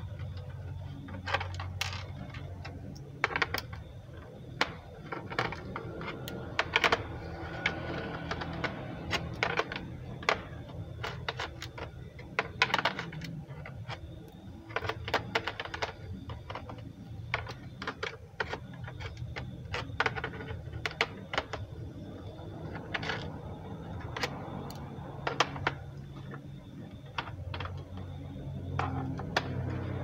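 Irregular small clicks and taps of a screwdriver on the screws and plastic bottom case of an Acer Z1402 laptop as the screws are undone, over a low steady hum.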